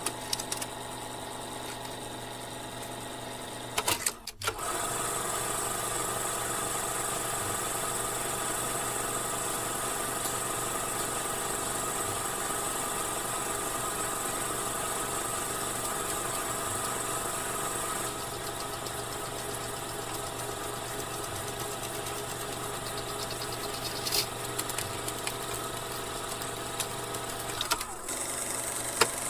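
Slide projector running: a steady motor and fan hum with a high hiss. A brief clatter of mechanism clicks comes about four seconds in, and more clicks come near the end.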